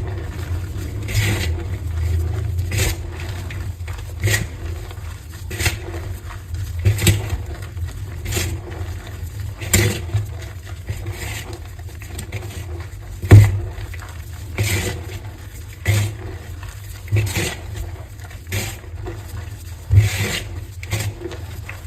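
Heart-shaped blocks of coloured gym chalk being broken and crushed, a crisp crunch about every second and a half over a low rumble. The loudest crunch comes a little past halfway.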